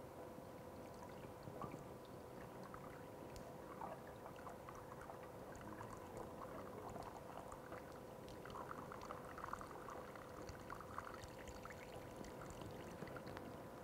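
Water poured from a plastic bottle, trickling and splashing faintly down the metal pipe of an electric water pump, a little busier in the second half. The pump is being primed: filled with water so that it does not suck air when it runs.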